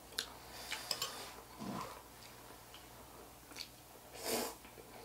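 Quiet eating of instant noodle soup: small clicks of a fork and chopsticks against bowls, soft chewing, and a short slurp about four seconds in.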